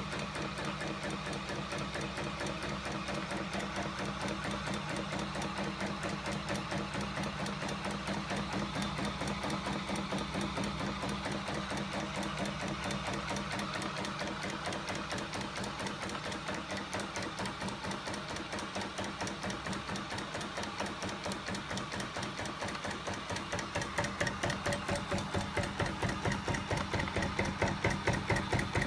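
Homemade aluminium crank-and-lever mechanism with flywheels, driven by a battery-powered electric motor, running steadily: a fast, even mechanical clatter of rapid repeated knocks that gets louder about three quarters of the way through.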